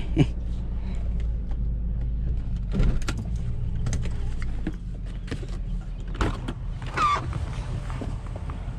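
A car's engine runs steadily, heard from inside the cabin as the car pulls over and stops, with a few scattered clicks and knocks. Near the end there is a short squeak as the driver's door is opened.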